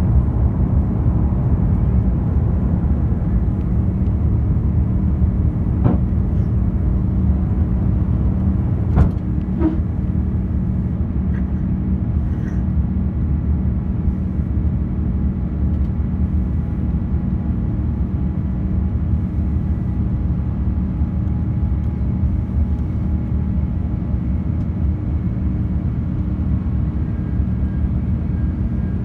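Steady cabin roar of an Airbus A350 in its climb after takeoff, heard from a window seat: Rolls-Royce Trent XWB engines and rushing airflow with a low hum. Two light knocks about six and nine seconds in.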